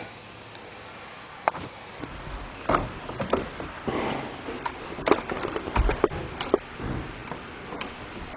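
A cat scuffling with a wooden table leg on carpet: scattered sharp clicks and knocks from about a second and a half in, with rustling and a few dull thumps.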